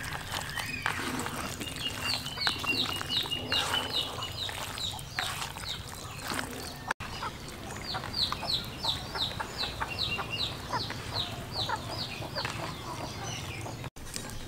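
Chicks peeping in runs of short, high, falling peeps, about four a second: one run about two seconds in, and a longer one from about halfway through.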